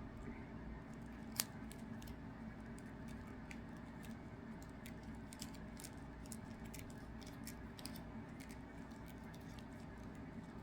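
Sleeved trading cards being handled and shown one after another: scattered small clicks and taps of the plastic sleeves, with one sharper click about a second and a half in, over a low steady room hum.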